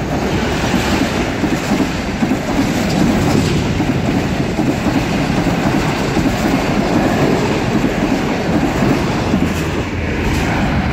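Pakistan Railways Green Line Express passenger coaches passing at speed, their steel wheels making a loud, steady running noise on the rails.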